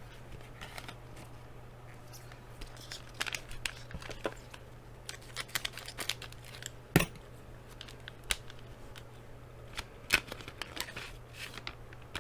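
A trading-card pack's wrapper being opened and handled: scattered crinkling and rustling with a few sharp clicks, the loudest about seven seconds in.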